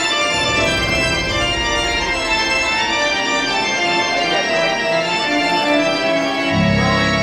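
Organ music playing sustained chords, with a deep bass layer coming in near the end.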